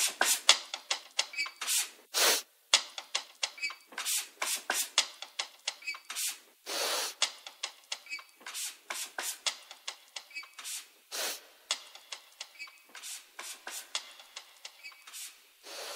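Sparse, bass-less electronic percussion from the track's outro: short, sharp noise hits and clicks, several a second at an uneven spacing, some with a short high tone. A longer noise swell comes about seven seconds in.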